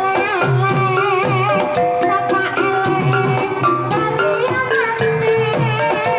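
Live Banyumasan gamelan playing a tayub piece: hand strokes on a kendang drum and mallet strokes on small kettle gongs, with a female sinden singing a wavering, ornamented line over them.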